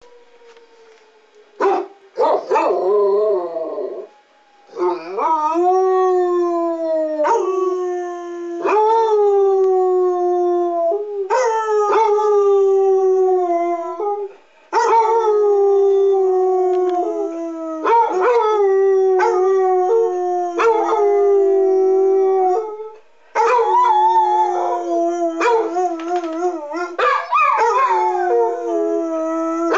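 Two basset hounds howling, one long drawn-out howl after another, each sliding down in pitch and holding, with short breaks between them. They howl along with a city warning siren being tested.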